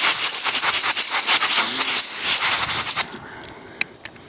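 Air hose blow gun blasting compressed air over a spark plug to clear loose carbon and debris, a loud high hiss that cuts off suddenly about three seconds in. A few faint clicks follow.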